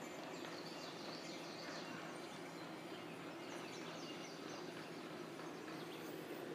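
Outdoor ambience: a steady low background noise with small birds chirping faintly, the chirps thickest a couple of seconds in.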